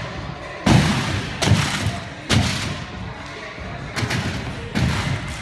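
A gymnast's hands and feet strike a sprung tumbling track during a tumbling pass, giving a series of thuds with a hall echo. There are three in quick succession, then two more after a short pause.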